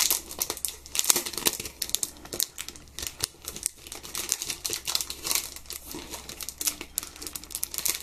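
Plastic packaging crinkling and crackling in irregular bursts as it is handled.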